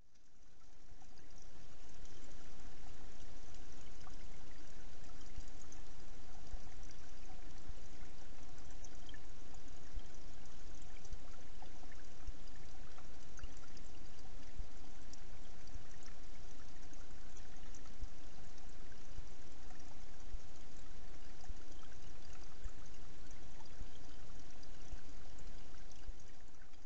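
Steady rushing noise with a faint steady hum through it, picked up by a trail camera's microphone; it fades in over the first couple of seconds.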